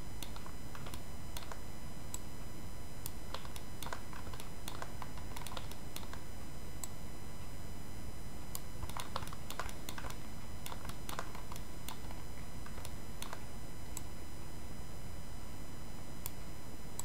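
Scattered clicks of a computer keyboard and mouse, bunched into quick runs a few seconds in and again around the middle, over a steady low background hum.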